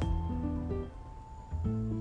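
Background music: sustained bass notes under plucked, guitar-like melody notes, with a new bass note coming in near the end.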